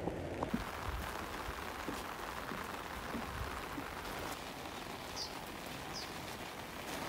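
Light rain falling, a steady hiss of drops, with two short high chirps about five and six seconds in.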